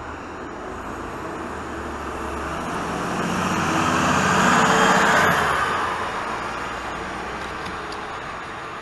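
A 2018 Nova Bus LFS diesel transit bus pulls away from a stop and drives past. Its engine and tyre noise swell to a peak about four to five seconds in, with a rising engine note and a thin high whine, then fade as it goes off down the road.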